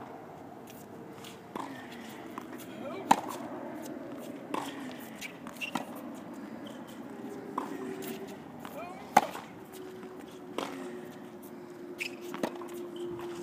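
Tennis ball struck with rackets in a forehand rally on a hard court: a sharp pop about every second and a half, two of them much louder than the rest.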